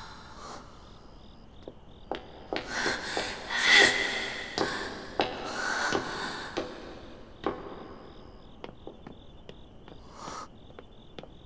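Crickets chirping steadily at night, with scattered footsteps on pavement. Louder breathy rushes of noise come between about two and a half and six and a half seconds in.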